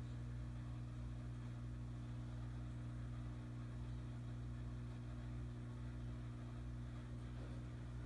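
Aquarium pump running with a steady, low electrical hum.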